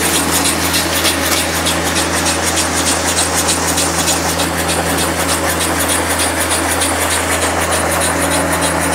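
Steady engine drone of a cranberry harvesting machine, whose paddle elevator and blower clean the berries. Over it, a fine, fast patter of cranberries pouring off the top of the elevator into a wagon.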